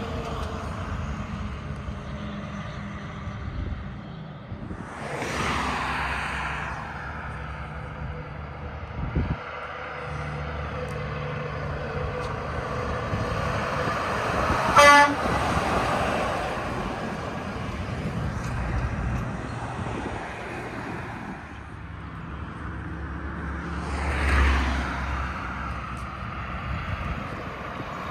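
Road traffic passing, with vehicles going by about five seconds in and again near the end. About halfway through comes a single short horn toot, the loudest sound.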